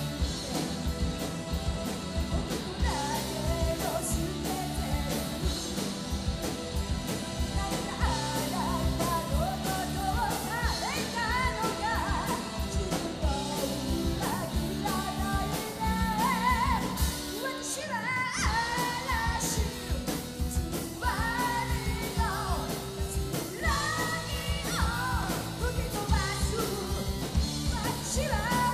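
Live rock band: a woman sings lead over electric bass and a steady drum beat, with a brief break in the beat about two-thirds of the way through.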